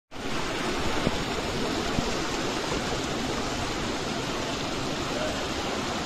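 Fast mountain stream rushing over rocks in a small cascade, a steady even rush of white water.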